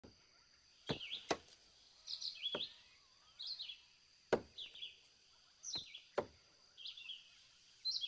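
Rainforest ambience: a bird chirping in short phrases that fall in pitch, repeated about once a second, over a thin steady high hum, with a few sharp knocks at irregular intervals.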